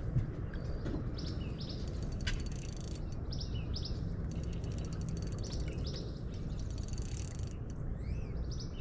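Fishing reel clicking rapidly for several seconds as a fish is played on the line, with a short break partway through. Birds chirp repeatedly over it.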